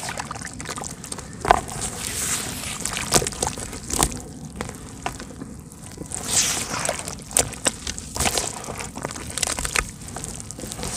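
Hands squeezing and stirring crumbled soft red dirt in shallow water: wet sloshing and squelching, broken by irregular sharp crackles as the lumps break up.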